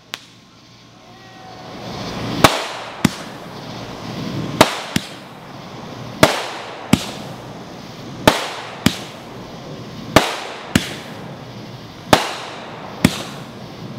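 Fireworks going off: sharp bangs in pairs, the first of each pair the louder, about every two seconds from a couple of seconds in, over a steady hiss.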